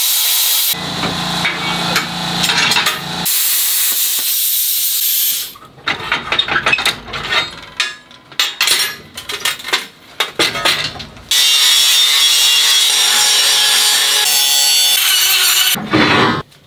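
Handheld plasma cutter hissing as it cuts steel plate, stopping about a second in. Then a few seconds of irregular clattering and scraping as the steel sheet and hand tools are handled, and the plasma cutter hissing steadily again for about four seconds near the end.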